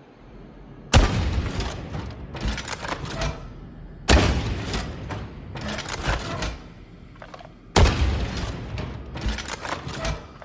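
Sound effect of an M79-style grenade launcher (the "Lorenz MK V") firing: three sharp shots about three seconds apart, each followed by a crackling, rumbling tail of smaller pops.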